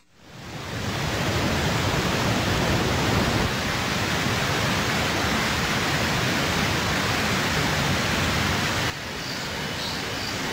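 Waterfall rushing, a steady noise of falling water that fades in over the first second, then drops to a quieter level near the end, where a few faint high chirps come in.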